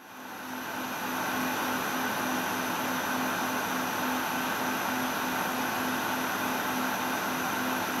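Industrial factory machine running steadily: a continuous mechanical rush with several steady whining tones over it and a low hum that pulses quickly and evenly. It fades in over the first second.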